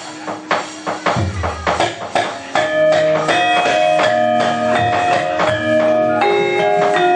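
Javanese gamelan starting up: a quick run of sharp knocks, the puppeteer's dodogan and keprak on the puppet box, with a deep drum stroke. About two and a half seconds in, the bronze metallophones come in with a steady ringing melody.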